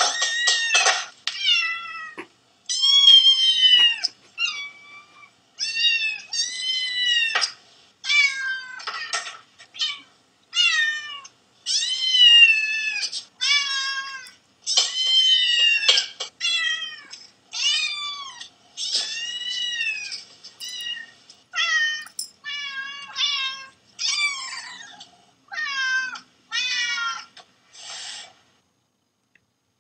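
Cats and kittens meowing over and over, a long run of high, rising-and-falling calls one after another with short gaps. It stops near the end.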